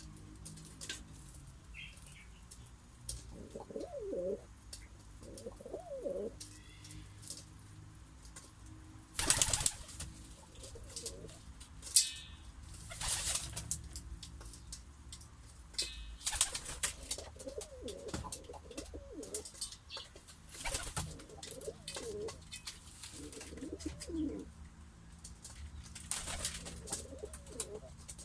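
Domestic pigeons cooing again and again in low, warbling coos, with several short, louder bursts of wing-flapping between them.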